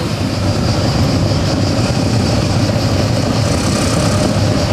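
Engines of many motorcycles and scooters running together as a group rides slowly past, a steady, dense mix with no single engine standing out.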